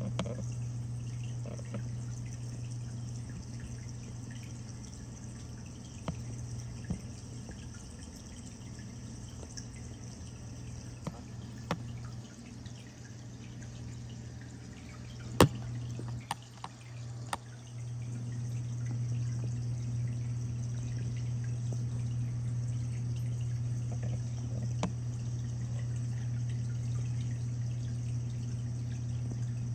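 Reef aquarium water circulation: trickling, dripping water over a steady low pump hum. A few sharp clicks, the loudest about halfway through.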